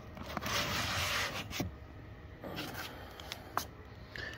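A boxed radio transmitter being pulled out of its foam packing cutout, the box rubbing and scraping against the foam. There is a rubbing rush for about a second, starting about half a second in, then a shorter rub and a few light knocks.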